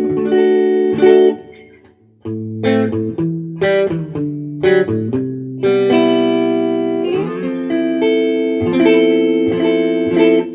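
Jazzmaster electric guitar played through an amplifier with the pickup selector in the middle position: a ringing chord that fades out about two seconds in, then picked single notes and sustained chords.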